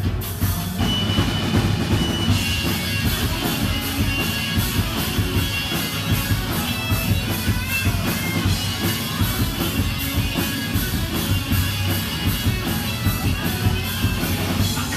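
Live rock band playing an instrumental passage: electric guitar and bass over a steady drum beat, with a high guitar line of held notes that bend. It is heard in the room among the crowd rather than from the mixing desk.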